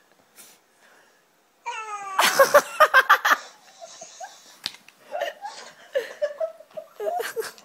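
Laughter: after a quiet start, a pitched squeal about a second and a half in, then a loud run of rapid laughs, trailing into softer giggles and voice sounds.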